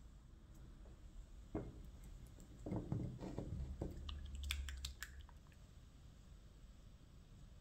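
Soft kitchen handling sounds: a few muffled thumps around the middle, then a quick run of light clicks as a silicone pastry brush is worked in a small glass bowl of beaten egg yolk.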